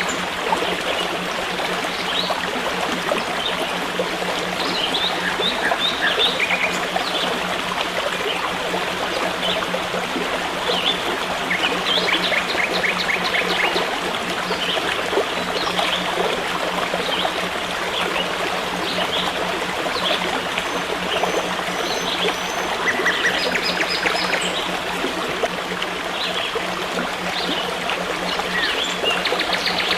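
Forest stream flowing steadily, with birds calling over it in short, rapid trills now and then.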